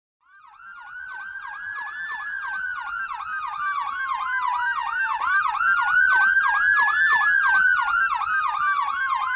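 Emergency vehicle sirens sounding together: a rapid electronic yelp sweeping up and down about three times a second, over a slower wail that rises and falls twice. The sound fades in and grows louder.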